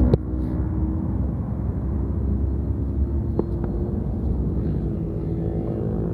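Motorcycle engine running at a steady speed over a low rumble, with a brief tick just after the start and another about three and a half seconds in.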